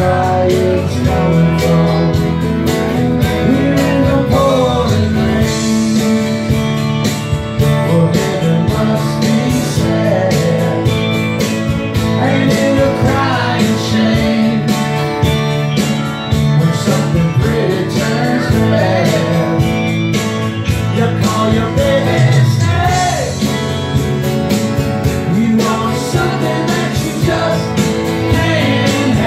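Live performance of a song: two acoustic guitars strummed together with a man singing into a microphone.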